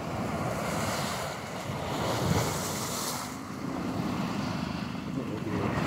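Sea waves washing against the rocks at the foot of a seawall, with wind buffeting the microphone; the surf swells up and fades back a couple of times.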